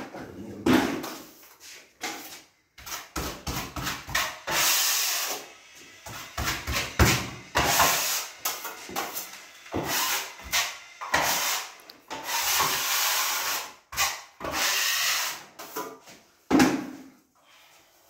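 A steel drywall taping knife scraping joint compound out of a bucket and spreading it along plasterboard joints, in a long run of irregular scraping strokes, each up to about a second and a half long.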